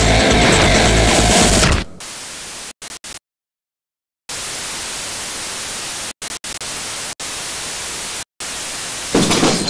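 Music that stops about two seconds in, then a steady hiss of static noise that cuts in and out abruptly several times, with gaps of dead silence and a louder burst near the end.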